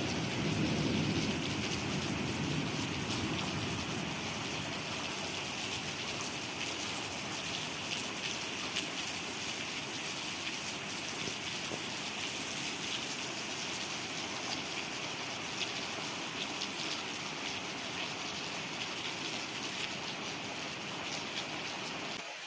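Heavy rain pouring steadily during a thunderstorm, a dense hiss full of fine drop ticks, with a low rumble of thunder dying away in the first couple of seconds.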